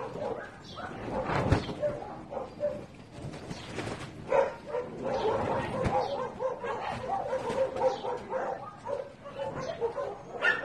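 Dogs barking and yipping, short yaps coming thick and fast from about four seconds in, with a sharp knock about a second and a half in.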